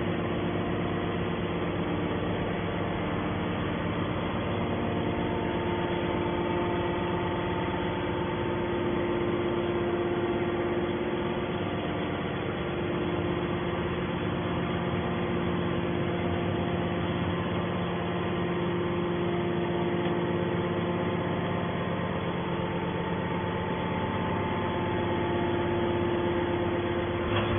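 Horizontal hydraulic scrap-metal baler running: a steady machine hum with several held tones from its hydraulic power unit, swelling a little now and then.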